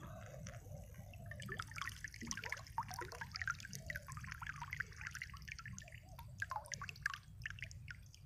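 Water dripping and trickling in quick, irregular drops and small splashes from a wet cast net and fish being handled in water, over a steady low rumble.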